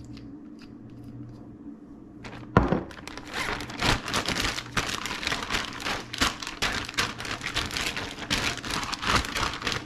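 A plastic zip-top bag crinkling and rustling as it is shaken and squeezed, working catfish pieces around in hot sauce inside. A single thump about two and a half seconds in comes before the crinkling starts.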